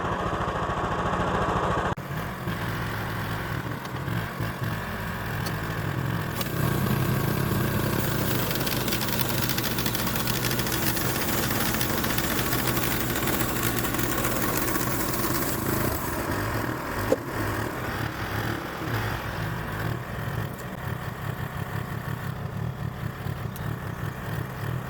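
Harbor Freight portable band sawmill running: its small gasoline engine drones steadily while the band blade saws through a seasoned oak log, the cutting hiss strongest through the middle stretch, with one sharp click about two-thirds through. The blade is starting to go dull and pushes hard through the oak, by the owner's account.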